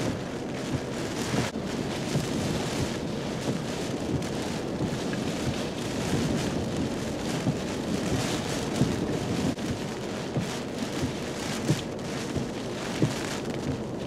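Strong onshore hurricane winds driving heavy rain: a steady, dense rush of wind and rain, with short gusts thumping against the microphone every few seconds.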